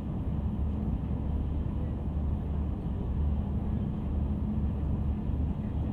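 Steady running noise of an electric train in motion: a low rumble with a constant low hum.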